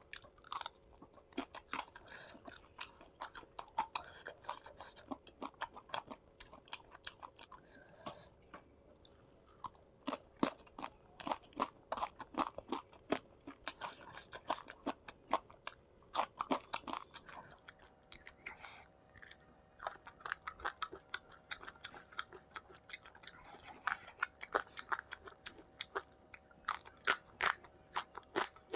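A person eating with the microphone close, chewing and biting with many irregular sharp crunches, typical of crisp fried fish and its accompaniments.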